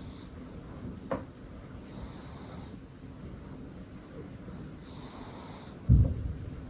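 A sleeping cat snoring: a soft, hissy breath about every three seconds. A short low thump near the end is the loudest sound.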